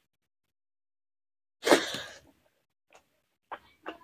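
Mouth sounds of a person eating rice by hand: one loud, short, wet mouth noise about a second and a half in as a mouthful is taken, then a few soft chewing clicks near the end.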